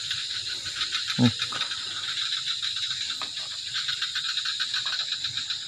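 Night insect chorus, crickets trilling steadily in a high, fast-pulsing drone.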